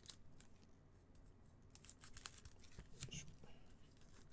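Faint crinkling and crackling of a foil trading-card pack wrapper as it is pulled open by hand, with a few light clicks scattered through.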